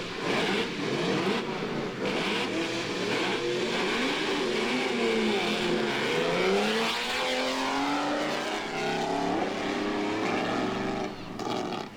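Pre-war Mercedes-Benz Grand Prix racing cars, including the 3-litre W163, running hard on a demonstration run. The engine notes sweep up and down in pitch as they accelerate and change gear, with two notes crossing near the middle.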